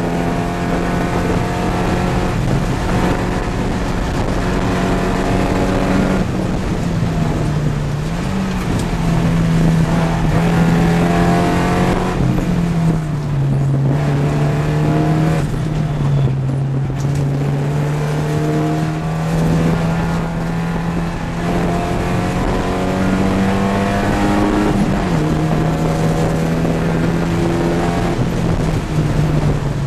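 Porsche 944 race car's four-cylinder engine heard from inside the cockpit at racing speed, its pitch climbing and dropping repeatedly as the driver works the throttle and gears, over steady wind and road noise.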